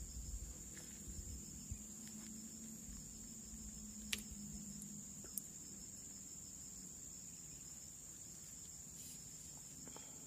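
Insects chirring steadily in one high, even band, with two short sharp clicks about four and five seconds in.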